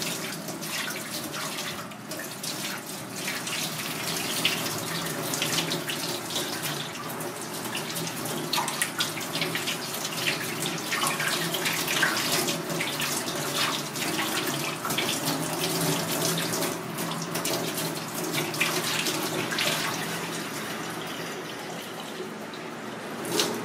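Tap water running into a stainless steel sink and splashing over hands as they rub and wash a sea snake's body.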